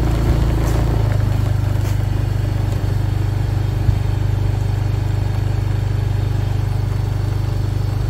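Small motorbike engine running steadily at low speed, its note changing about a second in, with a single sharp knock near the middle.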